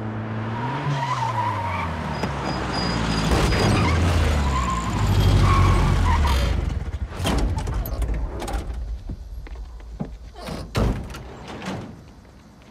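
A Volkswagen Vanagon van's engine running as it drives in and slows, shifting in pitch, for about the first seven seconds. After that comes a string of clicks and thunks, door sounds including a van's sliding side door, with one louder thunk near the end.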